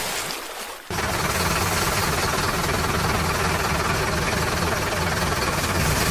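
Engine running steadily at idle. It dips for a moment and then cuts back in abruptly about a second in.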